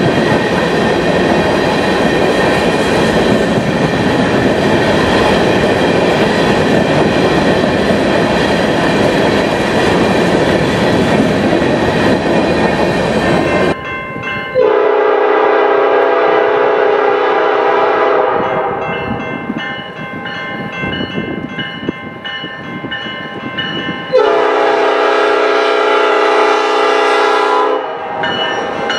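Covered hopper cars rolling past with steady wheel-on-rail noise. Then a diesel locomotive's air horn sounds two long blasts as it approaches, with a quieter stretch between them.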